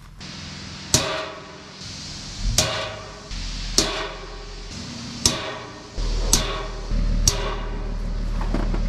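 Hammer striking a punch against a metal panel: six sharp, ringing blows about one to one and a half seconds apart. The blows dimple the hole positions before the holes are drilled.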